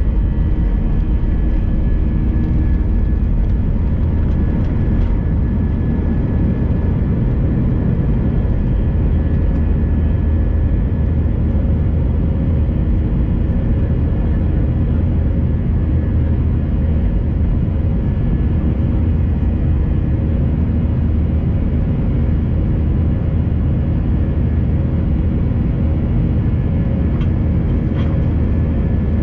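Steady cabin noise inside an Airbus A319 with its jet engines running: a loud, even low rumble with a few steady tones held over it.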